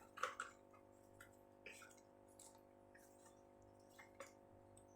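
A few faint, scattered clicks and rustles of oil bottles being handled, over a faint steady hum.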